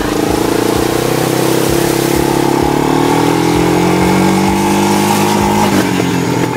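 Quad bike (ATV) engine running as it is ridden, its pitch sagging and rising a little with the throttle.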